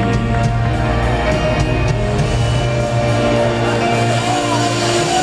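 Live rock band playing a slow passage, with electric guitar and keyboard chords held over a steady bass, heard in a crowd's recording of a concert.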